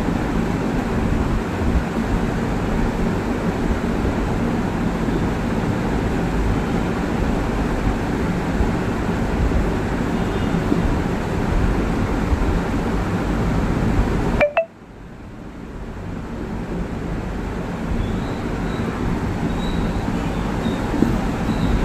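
Steady low rumbling background noise. It cuts out abruptly about two-thirds of the way through, then swells back up over a few seconds.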